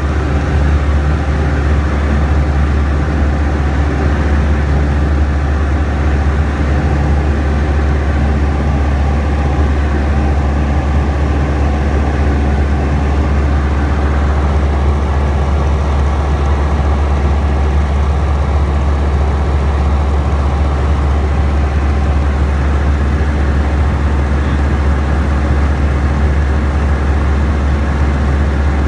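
Tecnam Sierra light aircraft's Rotax 912 piston engine and propeller running at a steady, even power, a loud constant drone with a deep hum.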